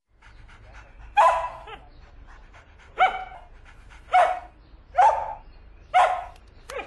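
Samoyed barking, five loud barks about a second apart with a few softer ones between.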